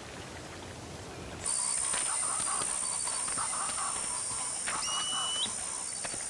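Wetland field ambience with birds calling. About a second and a half in, a steady high-pitched buzz sets in under the calls, with a short rising whistle a little after the middle.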